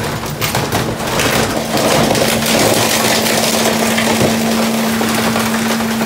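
Rear-loader garbage truck's hydraulic packer compacting trash in the hopper: a steady hydraulic hum under the crunching and splintering of cardboard and wood being crushed.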